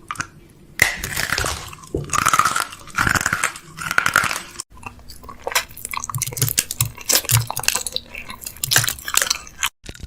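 A person biting and chewing crunchy fries close to the microphone. The crunching breaks off sharply twice, once about halfway and once near the end.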